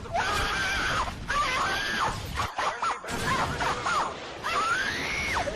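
High-pitched screaming from a meme sound effect: a run of shrill cries that bend up and down, broken by a short pause about halfway.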